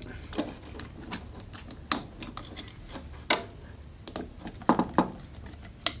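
Scattered sharp clicks and small taps from a screwdriver and a copper wire working the brass terminal screw of a plastic lampholder while the wire is fastened under it.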